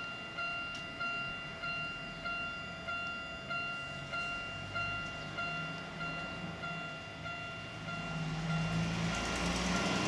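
Japanese level-crossing warning bell ringing with evenly spaced strikes, about one and a half a second, as the barriers come down. The bell fades out about eight seconds in, and the rumble of the approaching Keifuku tram grows louder near the end.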